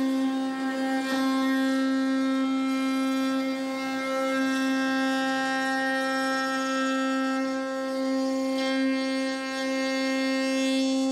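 Table-mounted router running at a steady speed, a constant whine, while the edge of an end-grain maple board is fed past a bearing-guided roundover bit.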